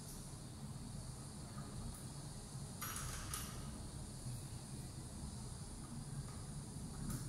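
Faint scraping of a hand screwdriver working a screw in a metal window frame: two short scrapes about three seconds in and another near the end, over a low steady hum.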